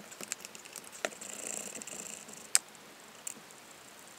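Small screws being undone with a hand screwdriver from the oil accumulator housing of a DSG DQ200 mechatronic unit: light metallic clicks and scraping, with a sharper click about two and a half seconds in.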